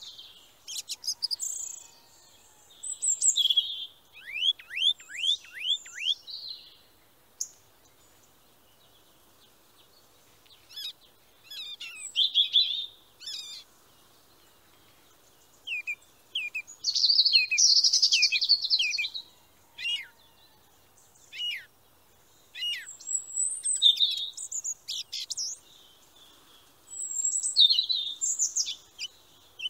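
Small songbirds singing: high chirps and trills in short bursts, separated by quiet pauses, including one run of quick falling whistles about four seconds in.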